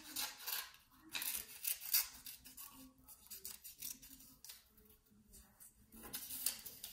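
Fiskars pointed-tip kids' scissors snipping through green construction paper in a run of short, sharp cuts, cutting out a paper leaf.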